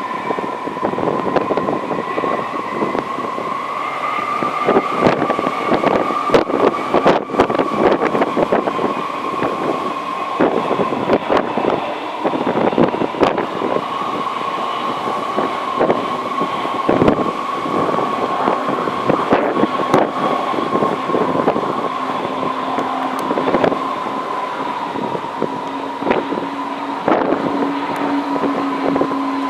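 Rolls-Royce Trent 700 turbofans of an Airbus A330-300 on final approach: a steady whine with fainter higher overtones, over gusty wind crackling on the microphone. A lower drone joins in about two-thirds of the way through and grows as the jet draws nearer.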